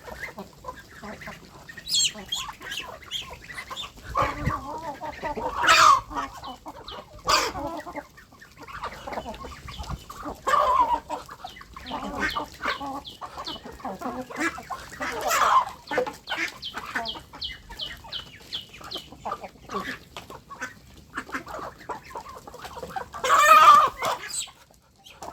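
A flock of chickens clucking and calling over one another, with a few louder calls standing out at intervals.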